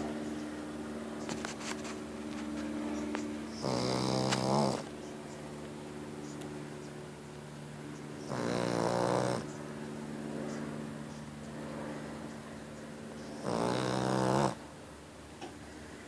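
Sleeping dog snoring: three loud snores about every four and a half seconds, each about a second long, with a quieter steady drone between them.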